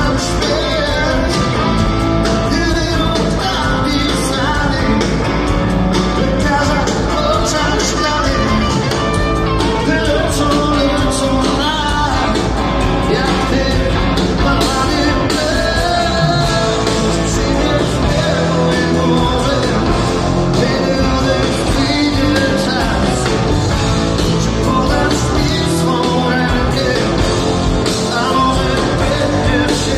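Rock band playing a song with singing, steady and loud throughout.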